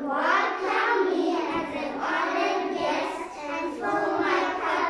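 A group of young children chanting a scripture verse together in unison.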